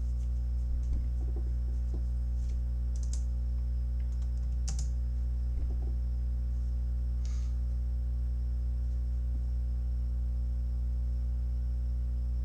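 Steady low electrical mains hum, with a few scattered faint clicks of keyboard keys being typed.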